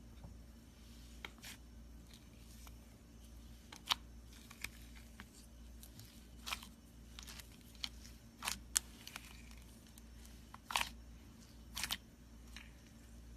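Slime being squished and worked by hand, giving irregular sharp clicks and pops that come more often and louder after the first few seconds, over a low steady hum.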